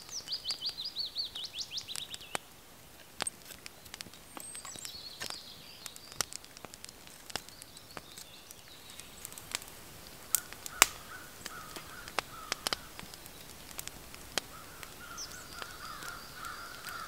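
A songbird sings a fast trill of falling notes for about the first two seconds. Sharp clicks and crackles from the small wood fire in the twig stove are scattered throughout. A faint wavering tone comes in past the middle.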